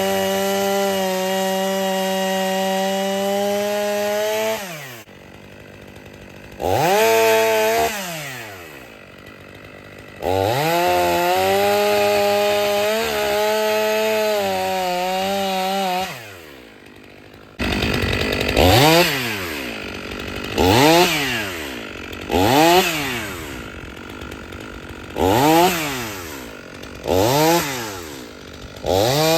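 Stihl MS 500i two-stroke chainsaw cutting firewood: two long steady runs at high revs, each several seconds, with the engine dropping back to idle between them. From about two-thirds of the way through come a string of quick throttle blips, each rev rising and falling, roughly one every two seconds.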